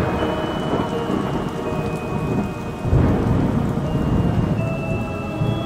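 Thunderstorm sound effect: steady rain with rumbling thunder, a deep rumble swelling about three seconds in, under long sustained musical tones.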